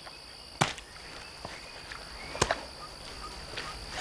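Open-country ambience: a steady high-pitched insect drone, with two sharp knocks about two seconds apart and a few faint chirps.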